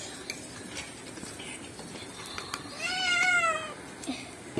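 One drawn-out animal call about three seconds in, lasting just under a second and rising slightly before falling away, over faint scattered clicks.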